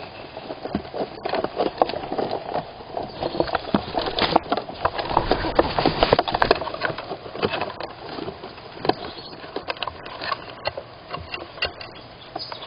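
Squirrel scratching and rustling inside a wooden nestbox: claws scraping on the wooden walls and floor and nest material being shuffled, a dense run of scratchy clicks that is busiest in the middle.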